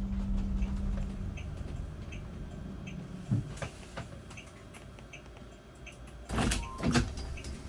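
Driverless electric shuttle bus pulling up at a stop: its steady motor hum fades out in the first second or two, with faint short beeps about once a second and a few knocks and clicks. Near the end the powered passenger door opens with two louder mechanical rushes.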